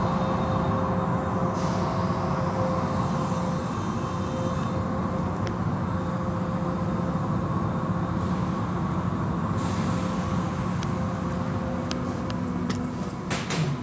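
Automatic car wash machinery running: a steady mechanical hum and rush with a couple of held tones, and a few sharp clicks near the end.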